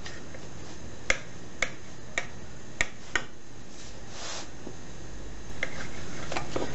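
Chef's knife blade clicking against a granite countertop as it cuts lengthwise through a rolled log of dough: five sharp clicks about half a second apart, a brief hiss, then a few softer clicks.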